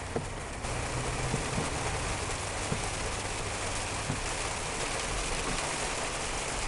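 Heavy rain on a car's roof and windshield, heard from inside the cabin while driving on a wet road. The rain noise gets louder about half a second in and then holds steady.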